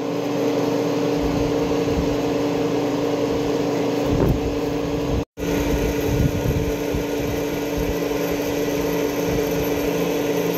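Electric fuel transfer pump on a farm fuel tank running with a steady hum. The sound cuts out for an instant about five seconds in, then carries on unchanged.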